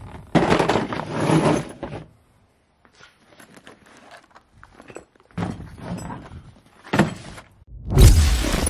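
Handling noises in short bursts, rustles and thunks from a boxed kit and a soft carry bag being picked up and moved, with a sharp click in the second half. Near the end a loud, deep whoosh-and-boom sound effect starts as the logo intro sting.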